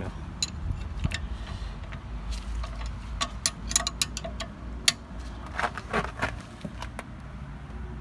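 Steel open-ended spanners clinking and scraping against a rear brake caliper as its guide-pin bolts are loosened. It is an irregular string of sharp metallic clicks and clinks, thickest around the middle.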